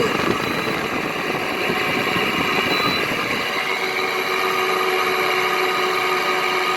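Frigidaire window air conditioner running, really noisy with a gravelly rumble that the owner puts down to horrible bearings. A steady hum joins in about three and a half seconds in.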